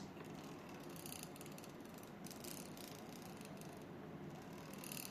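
Edelkrone SliderPLUS V6 camera slider's carriage moving along its rail with a faint, steady grinding, ratchety mechanical noise. The owner takes it for an abnormal sound from the wheels or belt, louder than the slider's motor.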